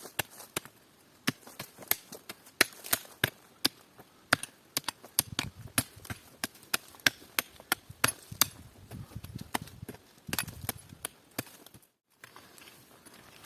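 Wood being chopped: a run of sharp, irregular knocks and cracks, two or three a second, with a low shuffling rustle through the middle of the run. The sound cuts out briefly near the end.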